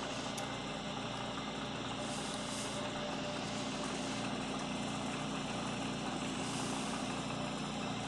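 Milling machine running with its end mill taking a squaring cut on a part held in the vise: a steady machine hum with two brief spells of brighter hiss, about two seconds in and again near six and a half seconds.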